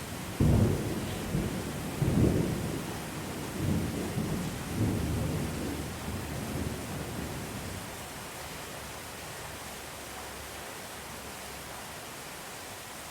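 Heavy thunder heard from indoors over steady rain: a sudden deep clap about half a second in, then rolling rumbles in several surges that die away after about seven seconds, leaving the even hiss of rain.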